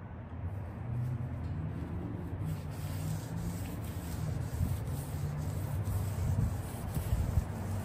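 Rubbing and scrubbing on a car's front splitter with acetone, working at its peeling top coat, over a steady low hum.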